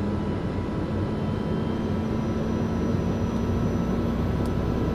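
Pratt & Whitney PT6A turboprop of a TBM 850 during engine start, the propeller turning slowly as the engine spools up: a steady rumble with a whine of several steady tones.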